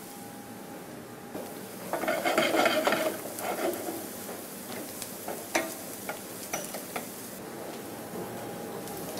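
Wooden spoon stirring shallots in a stainless steel saucepan, a noisy scraping stretch about two seconds in, with a few sharp knocks of spoon on pan a little later, over a faint sizzle of the shallots sweating in butter.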